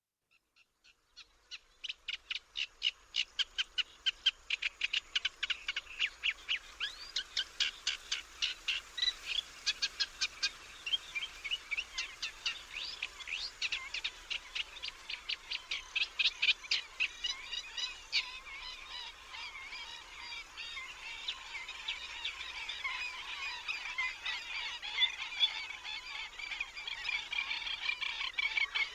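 Lagoon ambience with storks: a rapid series of sharp clacks fades in and repeats for the first eighteen seconds or so, then gives way to a denser, continuous chorus of wetland calls.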